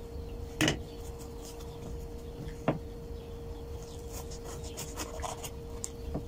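Kitchen knife cutting a red bell pepper on a wooden cutting board: faint slicing and scraping with one sharp tap on the board near the middle, over a steady low hum.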